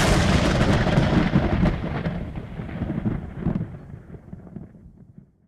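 A thunderclap: a sudden loud crash that turns into a long rumble with a few crackles, fading away over about five seconds.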